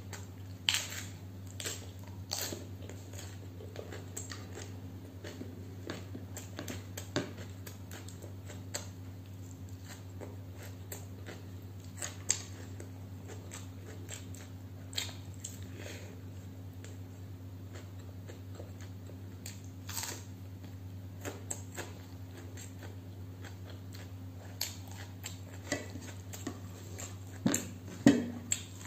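Close-miked eating: chewing, with irregular wet mouth clicks and smacks, over a steady low hum. The clicks come in small clusters about a second in and again near the end.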